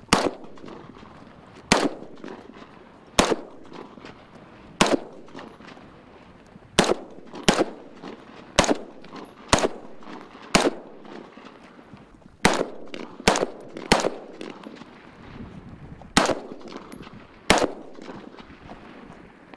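AR-15-style semi-automatic rifle fired shot by shot at an uneven pace, about seventeen single shots, some in quick pairs, each with a short ring-out.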